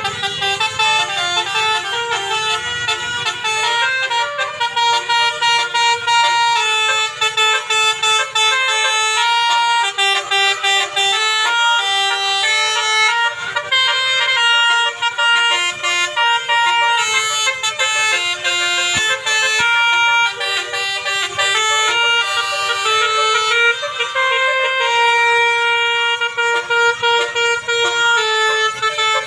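Basuri telolet bus horn playing a melody: several horn tones sound together and step from pitch to pitch like a tune, with short breaks between notes.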